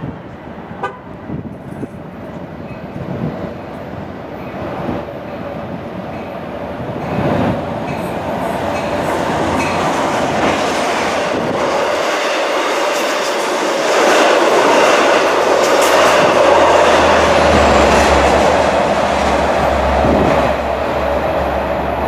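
A Long Island Rail Road train approaching the station, its running noise and a steady tone growing louder over about fourteen seconds and then holding loud and steady as it comes through.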